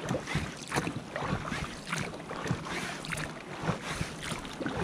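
Oars of an inflatable rowboat being pulled through the water: short, irregular splashes and knocks several times a second, with water lapping against the rubber hull.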